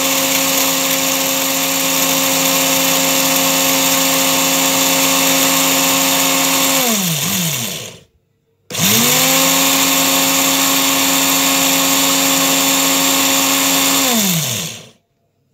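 Electric spice grinder with a glass jar grinding whole dry spices (carom seeds, cumin, coriander seeds, cloves, chilli) into powder. The motor runs steadily, spins down with a falling pitch about seven seconds in and stops, then starts again a moment later, runs about six seconds more and spins down again.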